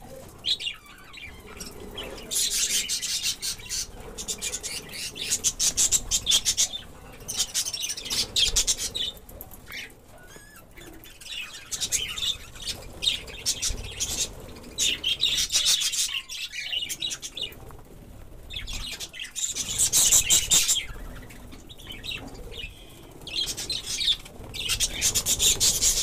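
A flock of budgerigars chattering and chirping, a dense rapid high-pitched twittering that swells in loud stretches of a few seconds with quieter gaps between.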